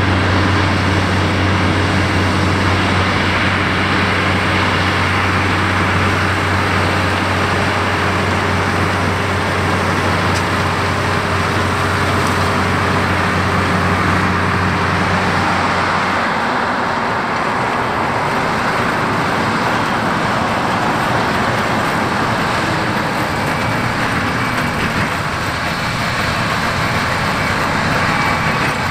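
Fendt Favorit 926 Vario tractor running steadily under load while pulling a ROC belt windrower through cut hay, with a strong low hum. About sixteen seconds in, the hum drops out and a steadier machine noise of tractor-drawn hay machinery continues.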